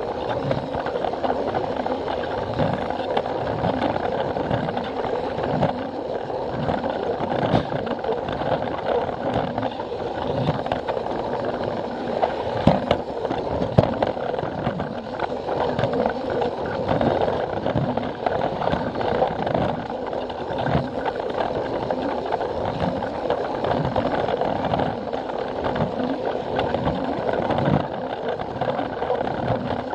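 Plarail toy train's small battery motor running with a steady whir, its plastic wheels clacking at the track joints in a regular rhythm of about one knock a second.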